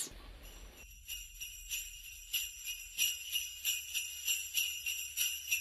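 Jingle bells shaken in a steady rhythm, about three shakes a second, starting about a second in.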